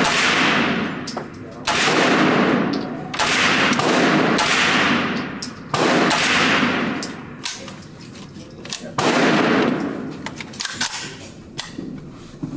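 About six shots from a KALI-9 carbine, fired a second or more apart with a longer gap before the last. Each shot rings for about a second in the indoor range's walls, and fainter sharp cracks sound between them.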